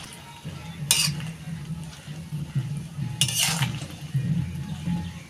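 A spatula stirring and scraping in a kadai of dried jujubes cooking in date-palm jaggery syrup, with three distinct scrapes against the pan over a steady low hum.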